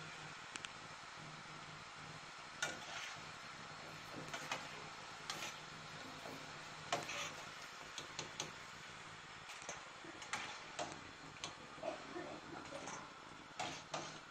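Lokma dough balls frying in hot oil in a pan, a steady sizzle, with a metal slotted spatula scraping and knocking against the pan every second or so.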